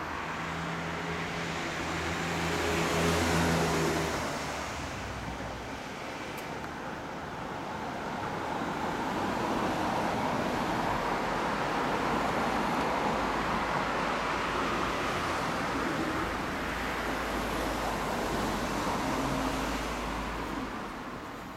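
Honda CB750 RC42's air-cooled inline-four idling through an SP Tadao titanium full exhaust system, a steady running sound that grows louder about three seconds in and again through the middle.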